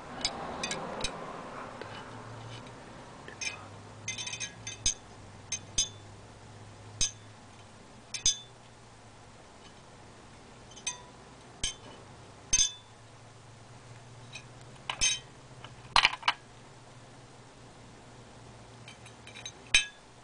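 Glass jar electrode cell on AC mains: a low steady electrical hum with irregular sharp ticks and crackles, roughly one a second, as the electrodes work in the water without lighting up.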